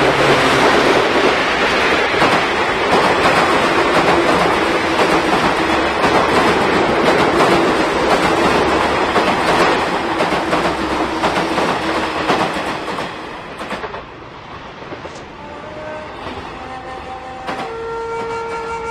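Chu-kuang express passenger train passing at speed, wheels clattering over the rail joints loudly, then dying away about 13 to 14 seconds in. Near the end a few held notes of music come in.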